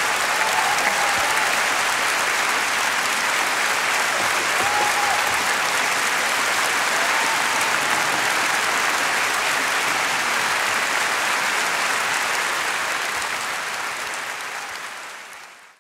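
Large concert-hall audience applauding steadily, with a few brief cheers; the applause fades out near the end.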